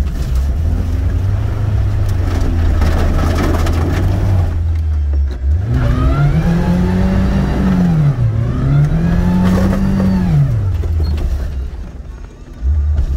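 Off-road vehicle's engine running at low revs, then revved up twice, each rev held for about two seconds before falling back, as it pulls through a muddy track; the level dips briefly near the end.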